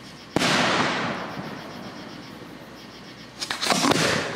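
Aerial fireworks shell bursting: a sharp bang about half a second in that fades out in a long echoing rumble, then a quick cluster of several bangs near the end.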